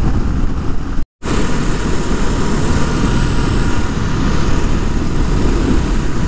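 Honda Rebel 500 riding at highway speed: wind rushing over the microphone over the parallel-twin engine and road noise. The sound cuts out completely for a moment about a second in.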